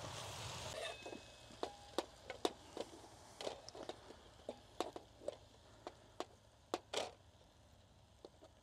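Wooden spatula scraping and knocking against a camping pot while food is pushed out of it into a metal bowl: a run of light, irregular clicks and taps.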